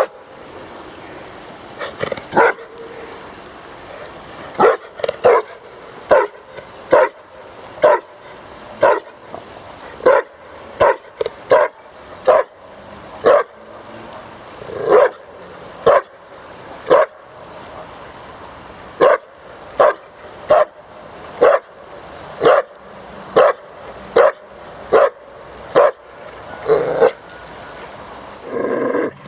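A dog barking repeatedly: short, sharp barks about once a second, some coming in quick pairs.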